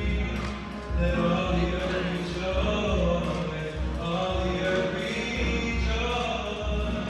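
Music with singing over a strong, recurring bass: gospel-style vocals, perhaps a choir.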